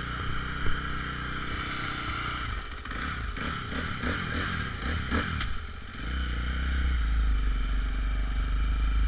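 Motocross bike engine running at low revs, its note wavering for a few seconds in the middle; after about six seconds the bike moves off and a strong low wind rumble on the camera microphone joins the engine.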